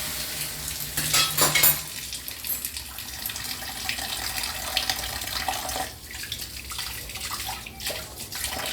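Tap water running into a kitchen sink while a pot is washed, with a burst of metal clattering about a second in and lighter knocks of the pot against the sink after.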